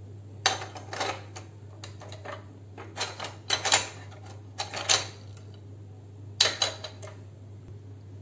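Steel kitchen knives clinking and clattering against one another as they are handled and set down in a pile: a string of sharp clicks in small clusters, over a low steady hum.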